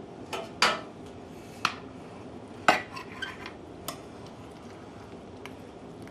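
Metal knife and fork clinking against a plate while slicing a meatloaf: a run of sharp clinks in the first few seconds, the loudest a little under three seconds in, then only one faint click later.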